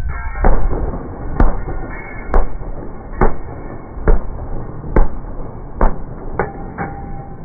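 Gunshots from an M2 .50-calibre heavy machine gun, fired singly rather than in bursts: about nine sharp reports roughly a second apart, the last two weaker and closer together.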